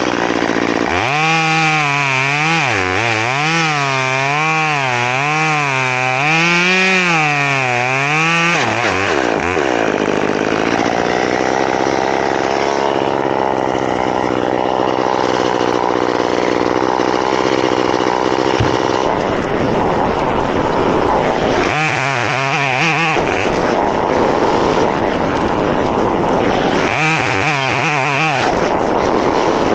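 Chainsaw at full throttle cutting dead pine wood, its pitch wavering up and down under load. One long cut of about seven seconds comes near the start, and two shorter bursts come later, with the saw running lower and steadier in between.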